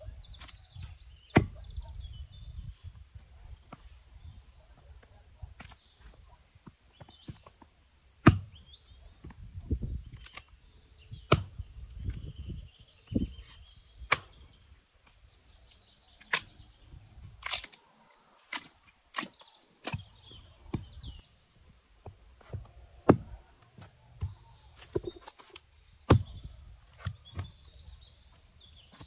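Wood being struck and cracked: sharp knocks at irregular intervals, about eight loud ones, with quieter taps and cracks between.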